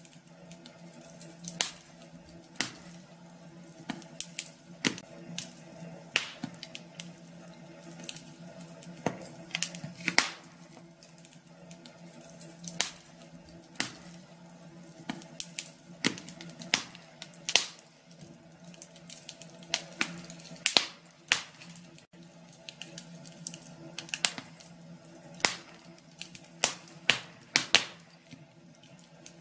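Wood fire in a fireplace crackling, with irregular sharp pops, several of them loud, over a faint steady low hum.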